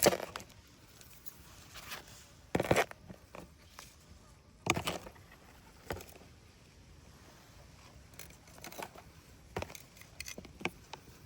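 A handful of short scraping and rustling handling noises, spaced a few seconds apart, with a low steady background between them.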